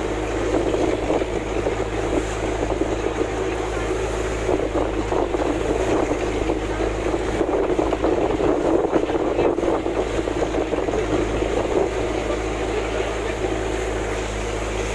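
Sea waves washing ashore with wind on the microphone, over a steady low motor drone such as a passing boat engine.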